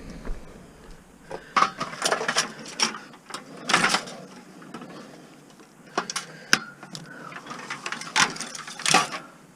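Irregular clanks, clicks and rattles of scrap metal being handled, with about eight sharp knocks spread unevenly.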